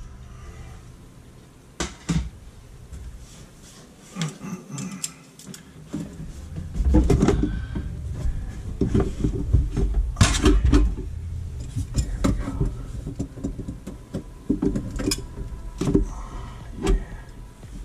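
Pliers and hands working at a faucet supply-line connection under a kitchen sink: scattered metal clicks and knocks with rustling, and low rumbling handling noise from about seven seconds in.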